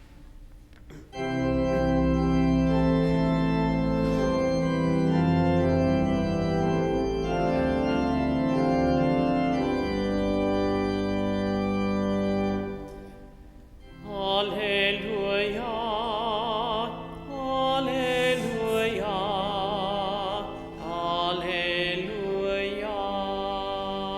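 Church organ playing sustained chords for about twelve seconds. After a brief pause, a voice with strong vibrato sings the Alleluia of the Gospel acclamation over the organ.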